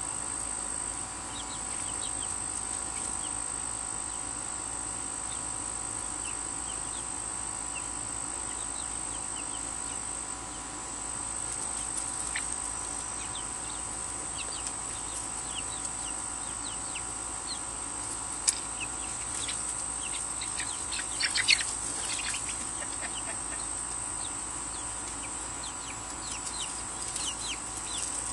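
Young Golden Comet chickens peeping and chirping in short calls, more often and louder in the second half, over a steady high insect buzz.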